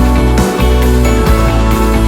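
Background music with a steady bass line and bright jingling notes.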